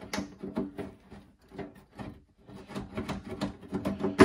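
Steel cover of an IBM PC/XT rattling and scraping against its chassis as it is tugged and worked by hand, a quick string of small metallic knocks with a louder knock at the very end. The cover is sticking and not sliding free.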